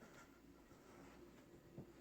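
Near silence: room tone with a faint steady hum, a few light clicks and one soft knock near the end.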